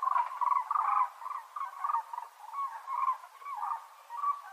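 Crowned crane calling: a rapid series of short calls, about three a second, with a few brief pauses.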